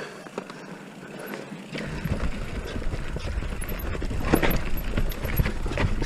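Haibike electric mountain bike rolling over rocky trail: quieter for the first two seconds, then tyres crunching and the chain and frame clattering in irregular knocks, the sharpest about four and a half seconds in and near the end.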